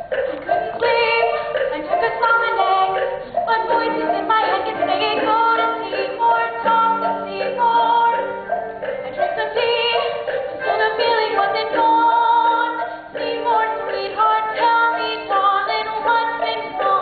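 Live stage-musical accompaniment from a band, playing a repeated pattern of short notes under held higher notes.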